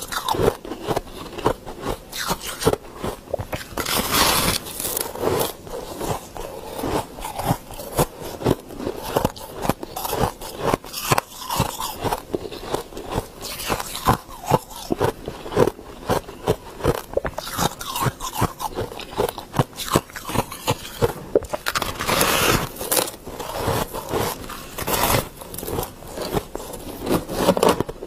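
Close-miked biting and chewing of large frost-covered ice chunks: a dense run of crisp crunches, several a second, with louder crunching about four seconds in and again after twenty seconds.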